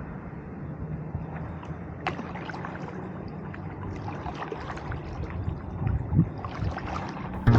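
Kayak paddling: water splashing and dripping off the paddle blades in irregular small splashes and ticks, over a steady low rumble.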